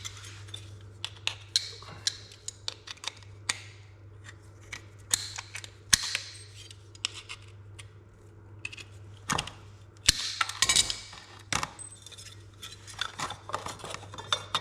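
Hand tools clinking, knocking and scraping on metal, a scatter of sharp clicks with a few short scrapes, over a steady low hum.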